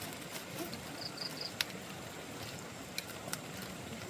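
Steady rain with scattered sharp drips and taps. About a second in, three quick high chirps from a small creature.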